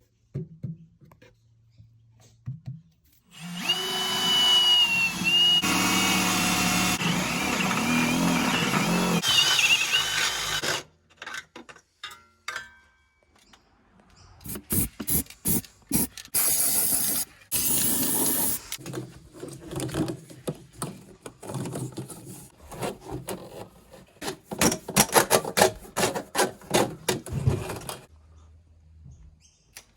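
Power-tool work on wooden cabinetry: a drill runs steadily for about seven seconds, its pitch wavering. After a pause comes a long stretch of short, rapid tool sounds and knocks.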